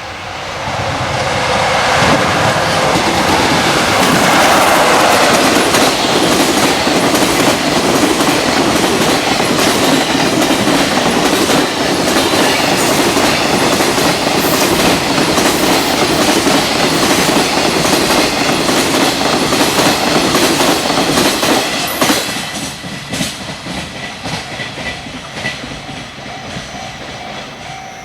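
Freight train passing fast over rail joints: a rapid clickety-clack of wheels striking the joints. It swells over the first couple of seconds, stays loud, and falls away about six seconds before the end as the last wagons clear.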